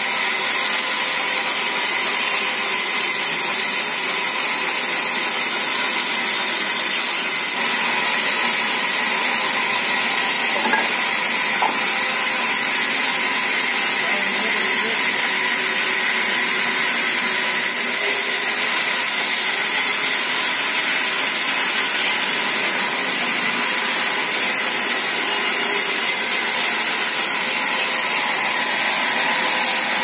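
Sawmill band saw running and cutting lengthwise through a log, a steady, unbroken whine and hiss at an even level.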